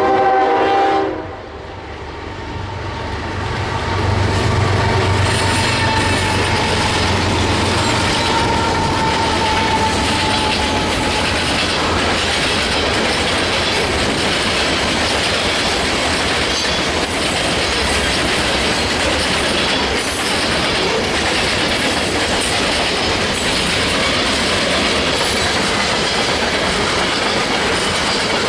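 Diesel freight train: the locomotive's horn sounds for about the first second, then the lead locomotives pass with a low engine rumble and a thin falling squeal, and the freight cars roll by with a steady clatter of wheels on rail joints.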